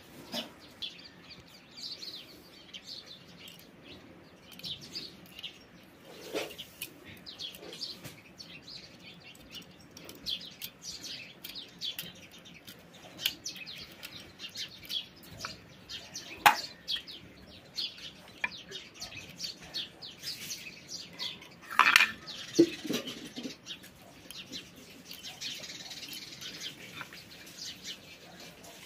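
Birds chirping on and off throughout, with occasional sharp metal clicks and taps as the small screws and contact parts of an electric iron are handled; the loudest clicks come about a third of the way in, past halfway and about three quarters of the way through.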